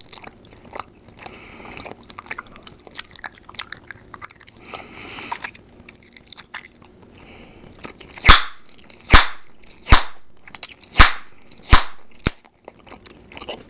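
Bubble gum chewed close to the microphone with soft wet mouth sounds and small clicks. About eight seconds in come six loud, sharp gum pops, roughly a second apart.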